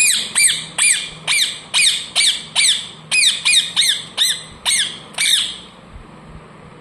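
A pet parrot squawking in a quick run of about a dozen short, sharp calls, each falling steeply in pitch, about two a second, stopping about five and a half seconds in.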